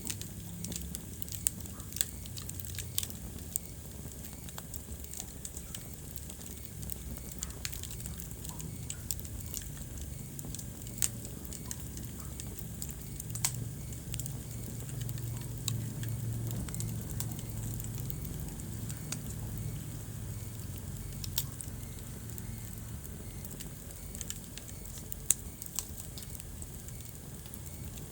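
Wood fire burning in a fireplace: a steady low rumble of flames with irregular crackles and scattered sharp pops.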